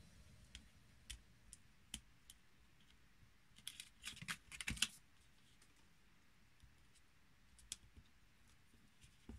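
Faint, scattered clicks and paper crinkles of white cardstock being handled and worked with a wooden-handled awl, with a denser run of louder crinkles about four seconds in as a paper flap is folded over.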